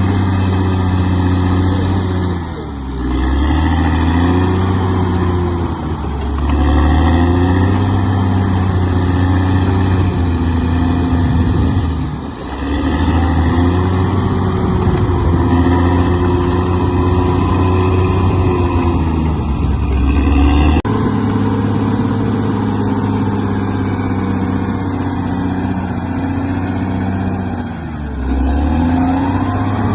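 Bulldozer's diesel engine working, its revs dipping sharply and recovering four times as the load comes on and off. About two-thirds of the way through, the sound changes abruptly.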